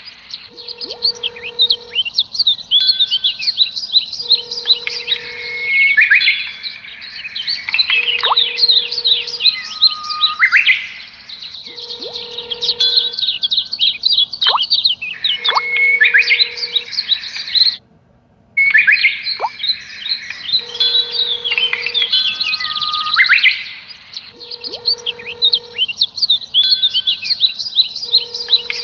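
Looped background track of bird-like chirps and tweets over a short steady low note, the same phrase repeating about every four seconds. It cuts out for a moment about eighteen seconds in.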